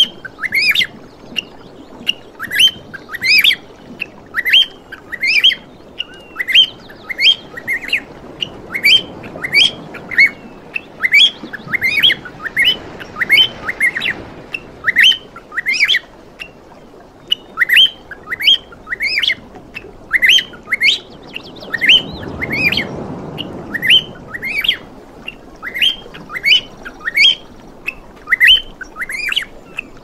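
Small parrots chirping: a rapid, even run of short, high, sweeping calls, about two to three a second.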